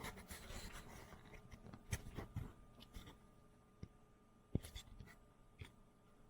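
Faint, scattered clicks and light knocks from handling small objects, the sharpest about four and a half seconds in.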